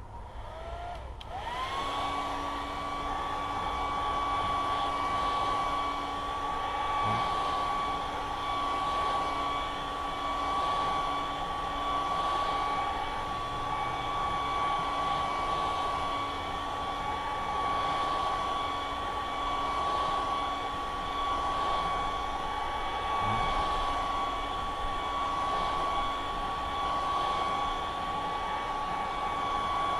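Hair dryer switched on about a second and a half in: its motor whine rises and settles into a steady high whine over the rush of blowing air, running on without a break.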